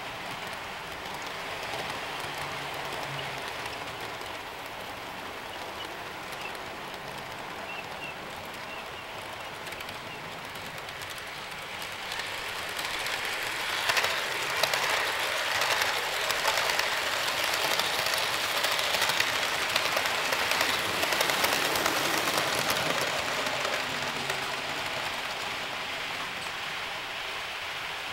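HO scale model trains running on the layout track: a steady rattling hiss of wheels and motors. About halfway through it grows louder, with rapid small clicks, as the mine train's cars pass close by, then eases off.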